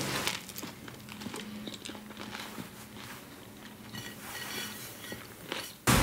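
Close-miked crunching and chewing of a lettuce sandwich being bitten and eaten, recorded as Foley: many small crackles over a faint low hum. A sudden louder noise cuts in right at the end.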